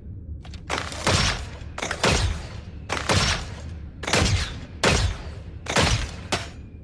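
Bow and arrow sound effects: a series of about seven sharp shots, roughly one a second, each a snap that trails off in a short falling thud, some with a faint click just before.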